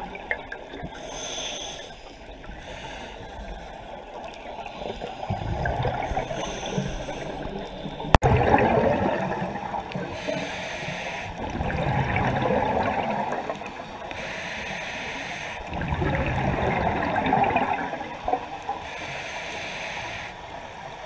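Scuba regulator breathing underwater: swells of bubbling exhalation every three to four seconds, with hissing inhalations between them. A single sharp click about eight seconds in.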